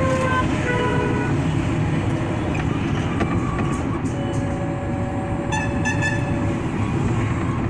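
Vehicle horns on a highway: a few short toots in the first second or so, then a longer horn from about four seconds in, with a brighter, harsher blast near six seconds. Under them runs a steady rumble of road, wind and body rattle heard from inside a moving Mahindra Treo Zor electric auto-rickshaw, with no engine note.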